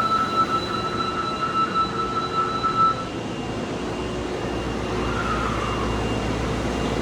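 A steady high electronic warning tone on a subway platform, sounding for about three seconds then stopping, over the low rumble of the station. A short falling whine follows about five seconds in.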